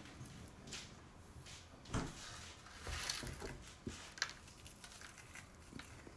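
Faint scattered taps and crunching as fingers press Oreo cookie pieces into crumbs on a plastic cutting board, with sharper knocks about two and four seconds in.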